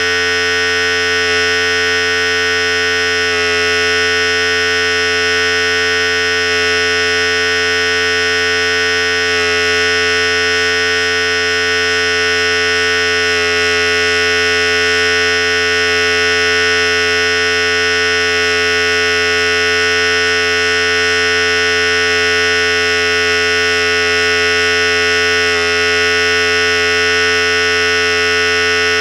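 Philips Series 5000 electric hair clipper running steadily at one even pitch.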